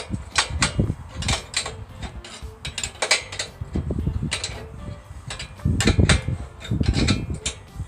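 Irregular metallic clinks and knocks from hand work on a steel sawmill track, as a proud section is adjusted down.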